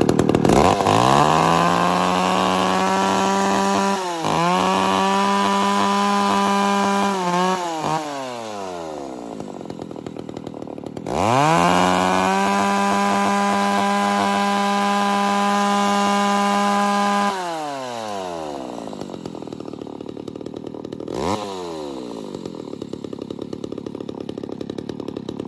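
Makita 28cc two-stroke chainsaw engine, just started, revved to full throttle twice for several seconds each. Between and after the revs it drops back to a fast, putting idle, with a short throttle blip about three-quarters of the way through.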